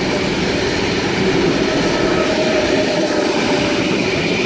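Two coupled K-set double-deck electric trains passing through the station on the main line without stopping: loud, steady rolling of wheels on rail with a few steady humming tones from the running gear.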